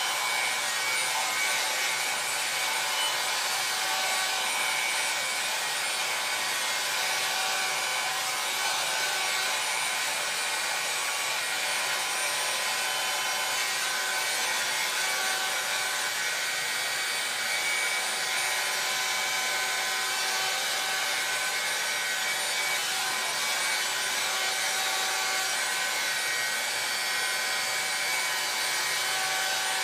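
Helen of Troy 1.5-inch hot-air styling brush running steadily: an even rush of blown air with faint, steady motor tones, unchanged as the brush is worked through a beard.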